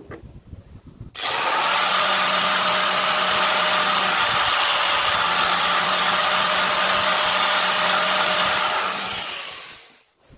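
Aerosol spray can spraying in one continuous hiss of about eight seconds, starting about a second in and fading out near the end.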